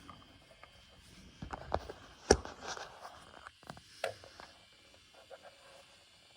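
Handling noise from a JVC GR-AXM230U compact VHS-C camcorder being turned over in the hands: a few sharp clicks and knocks, the loudest about two seconds in and another about four seconds in, with light rustling between them.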